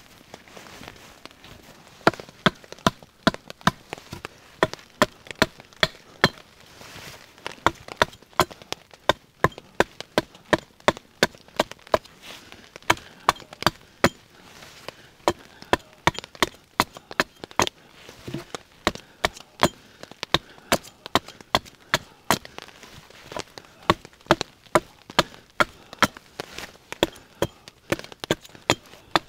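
Repeated sharp knocks of wood being struck, about two to three a second in uneven runs, starting about two seconds in.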